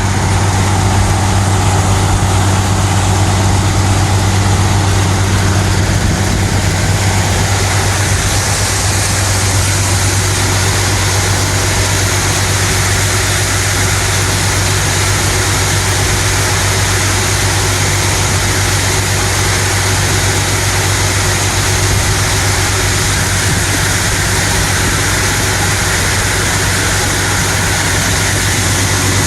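Tractor engine running steadily with a deep, even drone while pulling a deep ripper through compacted ground.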